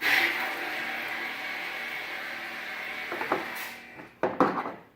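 Battery-powered IPS Pro chemical sprayer's pump switching on and spraying, a steady hum with a hiss of spray, then stopping after about three and a half seconds. A few knocks follow near the end.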